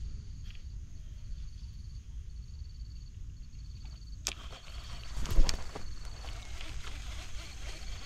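An insect trilling in short runs of rapid, evenly spaced pulses at one high pitch, over a low rumble. About four seconds in there is a sharp knock, then rustling and a louder knock about five and a half seconds in.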